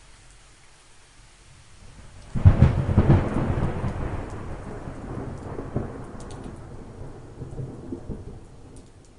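A clap of thunder that breaks suddenly about two seconds in, crackles for a moment, then rolls into a long rumble that slowly fades.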